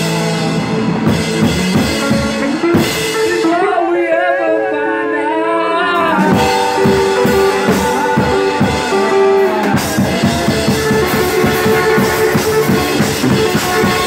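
Live rock band playing: drum kit and electric bass under a held, wavering melody line. The drums drop out for a few seconds about three seconds in and come back in about six seconds in.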